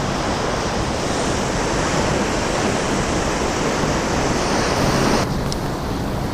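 Steady rushing of the Passaic River's water at the Great Falls, with wind on the microphone. The sound turns duller about five seconds in.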